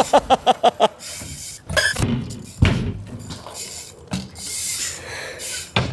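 BMX bike riding across skatepark ramps, its tyres rolling with a steady hiss. There is a sharp thump about two and a half seconds in and a louder thump near the end as the bike hits or lands on the ramps.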